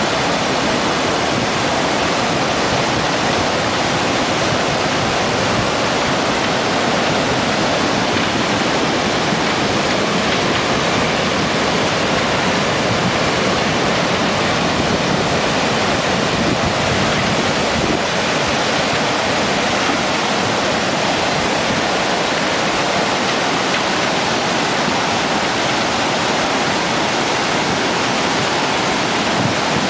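Steady loud rush of fast-flowing muddy floodwater, an even churning noise without a break.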